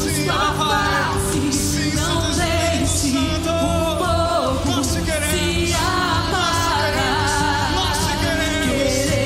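Live church worship band playing a praise song: singing over instruments with a steady drum and cymbal beat.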